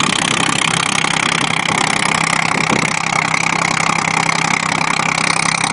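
Boat engine running steadily under a loud, even hiss of wind and water.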